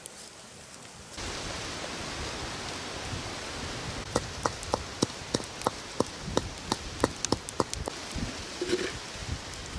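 Wooden pestle pounding dried red chillies in a small bowl mortar, a run of sharp, ringing knocks about three a second from about four seconds in, over a steady hiss.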